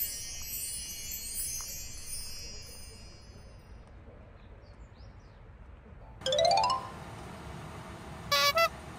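Editing sound effects: a glittering high chime sweep that fades away over the first few seconds, then a short rising tone about six seconds in, and two quick bright chimes near the end.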